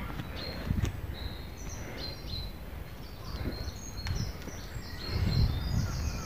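Small birds chirping in short high runs of notes, over a person's footsteps on a leafy dirt path, the steps heaviest about five seconds in.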